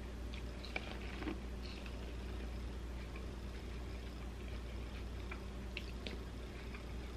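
Quiet eating sounds from chewing and handling corn on the cob: a few small, sharp clicks about a second in and again near six seconds, over a steady low hum.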